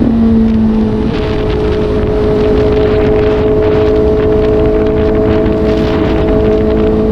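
Suzuki GSR750's inline-four engine pulling on the move, its note dropping sharply right at the start as a gear changes up, then holding a steady pitch. Wind rushes over the microphone throughout.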